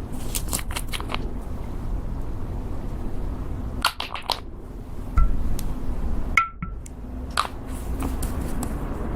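Slime being mixed and pressed by hand, giving off scattered sharp clicks and pops over a low handling rumble.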